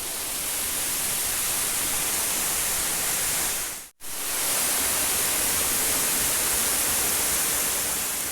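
Waterfall rushing: a steady, hissing noise of falling water close by, broken by a momentary drop about four seconds in.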